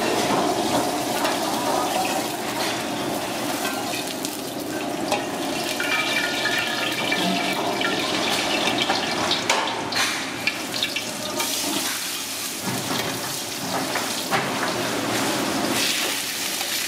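Food sizzling in a hot pan, a steady hiss with scattered clicks and scrapes of a utensil.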